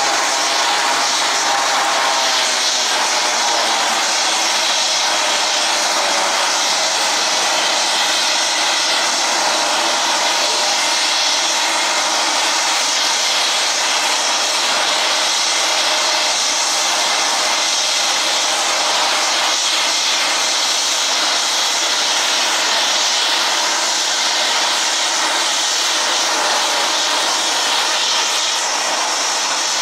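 Turboprop engines of a Dornier Do 228 running steadily, an even high whine over rushing noise.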